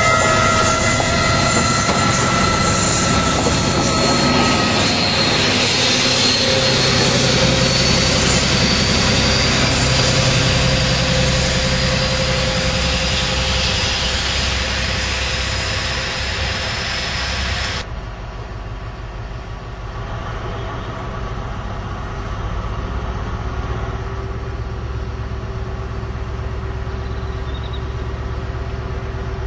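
A High Speed Train (Class 43 diesel power cars with Mark 3 coaches) running past at speed: a loud, steady rush of wheel and air noise with a high whine from the power car. About two-thirds of the way through it cuts to the quieter, steady diesel hum of another HST drawing slowly into the platform.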